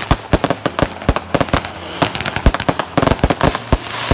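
Aerial fireworks going off in a fast, irregular barrage of sharp bangs and crackles, several reports a second. A crackling hiss rises about two seconds in.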